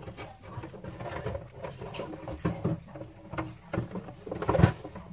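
Handling noise from a Saeco Minuto coffee machine being reassembled: irregular clicks, knocks and rattles as the internal parts are pushed into the housing, with one louder knock near the end.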